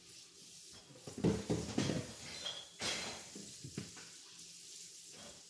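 Dishes, pans and utensils clattering and knocking, a run of handling noises between about one and four seconds in, over a steady sizzle of sweet potato fries frying in a skillet.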